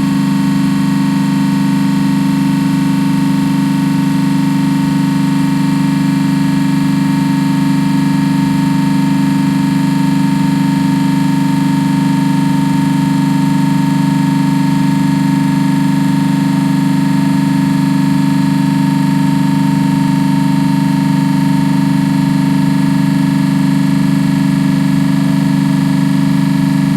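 Trane CRHR500 piston refrigeration compressor running steadily under test, a loud even hum that does not change.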